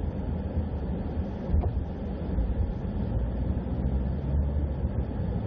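A vehicle travelling along a road, with a steady low rumble of engine and road noise.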